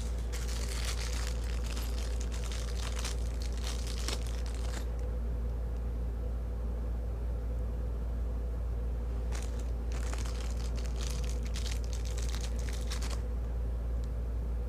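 Crinkling, crackly rustle of packaging being handled, in two spells of a few seconds each with a pause between, over a steady low hum.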